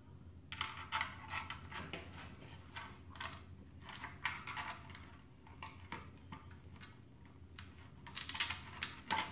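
Close handling of small plastic parts: a toy boat's plastic hull and small motor wires being worked by hand, giving irregular light clicks, taps and scrapes that start about half a second in and come thickest near the end, over a low steady hum.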